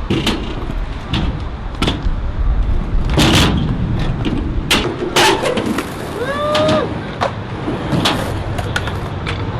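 Skateboard wheels rolling on concrete with a steady rumble, broken by repeated sharp clacks and knocks of boards hitting the ground. The loudest hits come about a third and halfway through.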